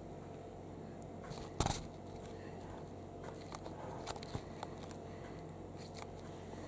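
Quiet kitchen handling sounds while preparing biscuit crumbs: a few light clicks and one louder clatter about one and a half seconds in, over a faint steady hum.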